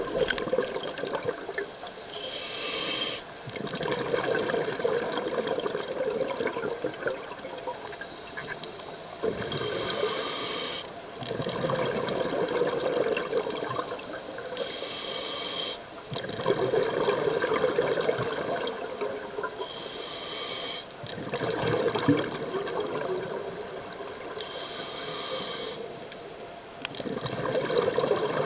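Scuba diver breathing through a regulator underwater: five short hissing inhalations about every five seconds, each followed by a longer exhalation of bubbling air.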